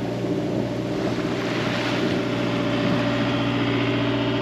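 Sailboat's inboard engine running steadily under way, a constant drone, with wind and water hiss over it.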